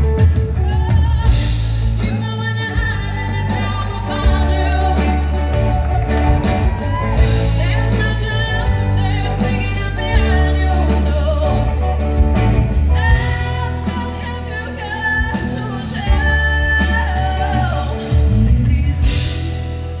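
Live band music: a woman singing over ukulele, electric guitars, electric bass and drums, with the bass notes and a cymbal beat running steadily underneath.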